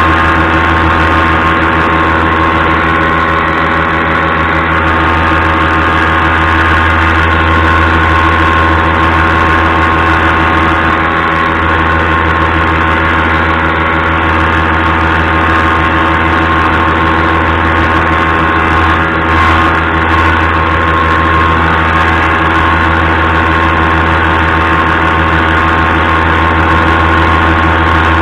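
Paramotor engine and propeller running at a steady cruise throttle: a loud, even engine note that holds one pitch.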